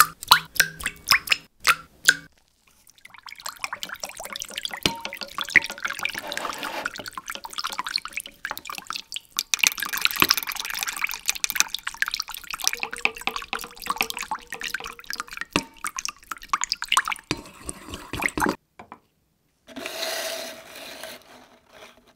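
Water running and splashing, crackling and dripping in uneven bursts, after a quick run of sharp clicks at the start.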